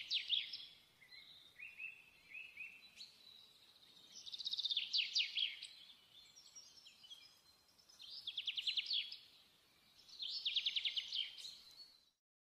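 A songbird singing: phrases of rapid, high chirping trills every few seconds, with softer chirps between them. The sound cuts off abruptly just before the end.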